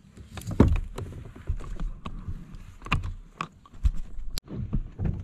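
Irregular knocks and thumps of gear handled against a plastic sit-on-top fishing kayak while the angler plays and lands a small fish on rod and reel. The loudest knock comes just over half a second in, and a sharp click follows near the four-second mark.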